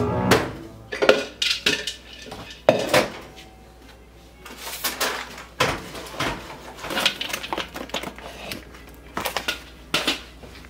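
Kitchen clatter of dishes and a plastic cup being handled at a cupboard and set on a wooden counter: a string of sharp clicks and clunks with short pauses between them.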